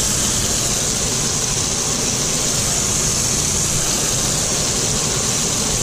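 Beef burger patties sizzling in a steel frying pan over a gas burner: a steady, even hiss.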